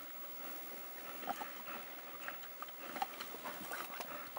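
African wild dogs feeding on a live wildebeest: irregular tearing, chewing and snapping noises, with a few short high squeaks.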